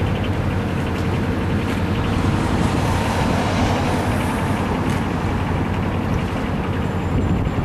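A small canal tour boat's engine running steadily under way: a low, even hum with a fine rapid pulse, over a steady hiss of water and air.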